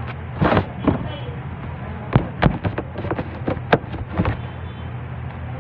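Bread dough being handled by hand on a stainless-steel worktable: irregular sharp slaps and thuds as it is torn off, rolled into a log and slapped down, about a dozen in all.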